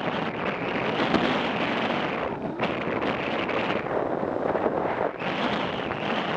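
Wind rushing over the microphone of a moving motorcycle, with road and riding noise underneath as a steady, unpitched roar that dips briefly twice.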